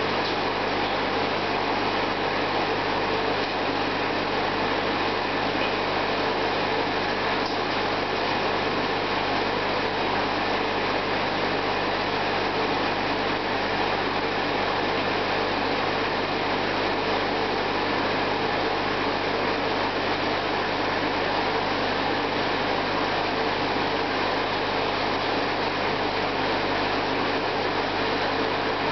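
Aquarium filtration equipment running: a steady low hum with an even rushing noise over it.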